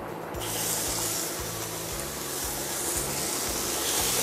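Bacon-wrapped salmon rolls sizzling on a hot flat crêpe pan; the sizzle starts suddenly as they go down, about half a second in, and then runs on as a steady hiss.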